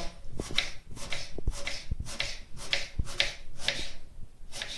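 Kitchen knife slicing a peeled eggplant on a wooden cutting board: a steady run of short cuts, two or three a second, the blade knocking on the board at the end of each stroke.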